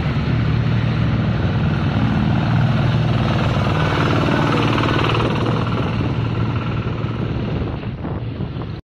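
Two-wheel hand tractor's single-cylinder diesel engine running steadily while the tractor drives along the road, heard close up. The sound cuts off suddenly near the end.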